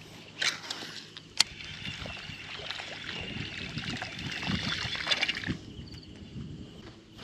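Water splashing and trickling against a small boat, with a few sharp clicks, the loudest about a second and a half in. The hiss drops away about five and a half seconds in.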